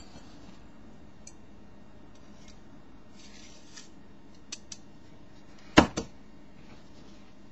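A miniature metal sword in its scabbard handled in cloth gloves: faint clicks and a short rub, then two sharp clacks close together about six seconds in as it is set down on the table.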